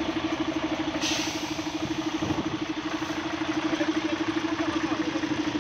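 Heavy diesel truck engine idling with a steady, fast, even throb. A brief hiss cuts in about a second in.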